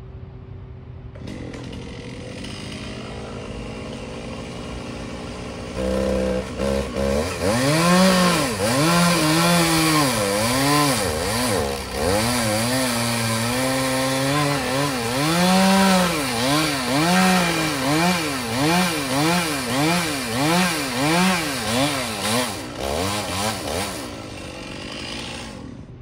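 Gasoline chainsaw running hard, its engine note swinging up and down over and over, in quicker swings near the end, after a few short bursts. A steadier engine hum runs underneath.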